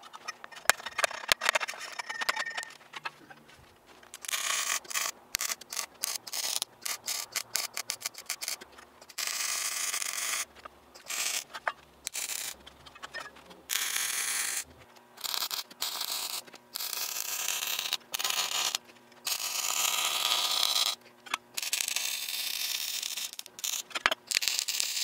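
Wire-feed welder arcing on steel in a long series of separate bursts of steady crackling hiss, each from under a second to about two seconds long, with short pauses between them. A few clicks and metal scrapes come in the first few seconds.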